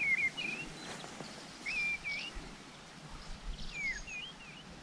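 A songbird singing short whistled phrases of a few gliding notes each, three phrases spaced a second or two apart, over faint outdoor background noise.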